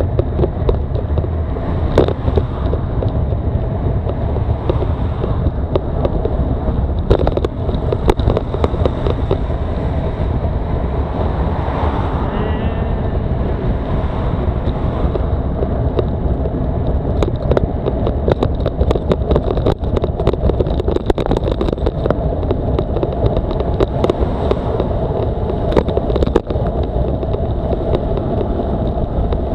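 Steady wind noise buffeting the microphone while cycling, with many short sharp clicks and knocks throughout.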